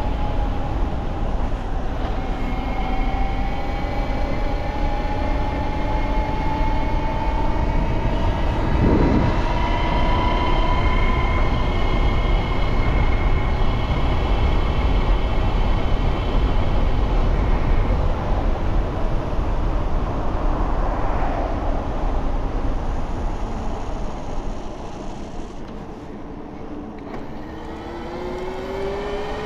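72V BBSHD mid-drive e-bike motor whining under way, with wind rumble across the microphone. Its pitch climbs slowly as the bike gathers speed, fades as it eases off near the end, then rises again as it accelerates.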